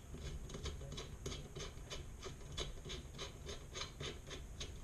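Light metallic clicking and rubbing, about four clicks a second, as a bolt is screwed in by hand with a multi-tool.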